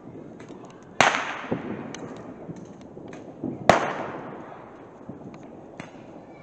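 Two sharp, loud firework bangs, about a second in and again nearly three seconds later, each echoing away slowly, with a few fainter pops between and after.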